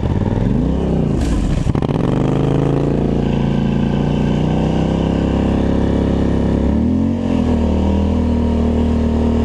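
Polaris Scrambler ATV engine running under load as it pushes through deep snow: the revs climb in the first second, hold steady, dip briefly about seven seconds in and pick up again. A short hiss comes about a second and a half in.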